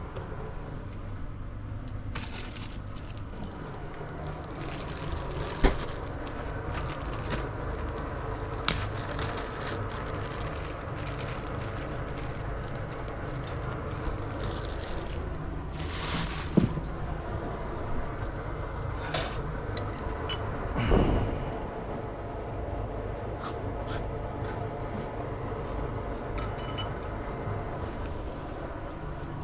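Kitchen cooking sounds: scattered clicks and knocks of utensils and cookware over a steady low hum, with a few short hissing spells and a longer noisy burst about two-thirds of the way through.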